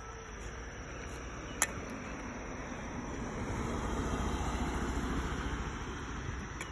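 A car driving past on the street, its tyre and engine noise swelling to a peak about two-thirds of the way through and then fading. A single sharp click comes about a second and a half in.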